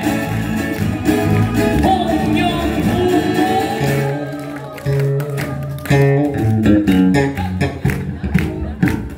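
Live band music played on acoustic and electric guitars, bass guitar, keyboard and a hand drum. About four seconds in the sound thins out to a plain bass line under guitar, with sharp drum strikes toward the end.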